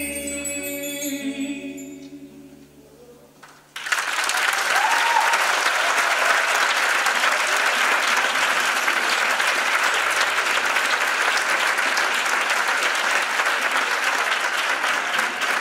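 A tuna's voices and string instruments hold the song's final chord, which fades away. About four seconds in, an audience breaks into steady applause.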